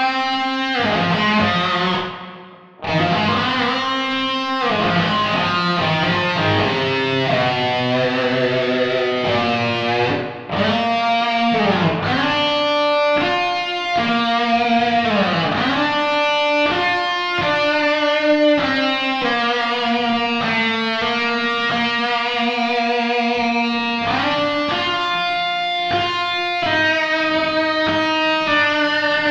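Rock song section led by a distorted electric guitar playing a melodic line with bent notes, over bass and drums programmed on a Mac. The music drops out briefly about two and a half seconds in.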